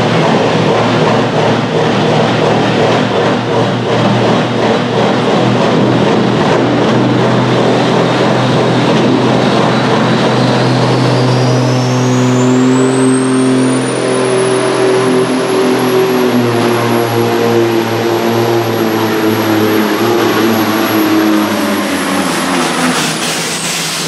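Supersports-class pulling tractor's engine running loud and steady at the start line, held at high revs. About halfway through, a high whine climbs steeply and holds, then drops away near the end as the tractor moves off on its pull.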